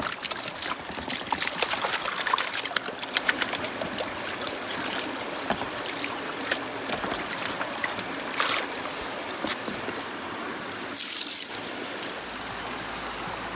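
Wet gravel and water poured from a bucket into a plastic gold pan, with stones rattling and clicking into the pan, thickest in the first few seconds, and water splashing and trickling. A creek runs underneath.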